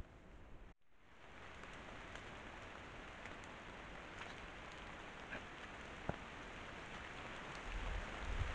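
Light rain falling steadily, an even hiss of patter with a few sharper drips. A low rumble builds near the end.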